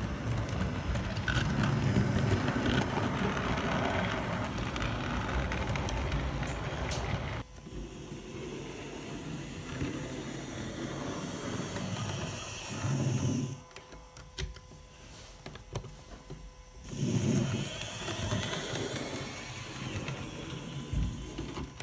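Model railway locomotive running along the track: the small electric motor's hum and the wheels rattling over the rails. It is louder for the first seven seconds or so, then fainter, swelling briefly twice later on.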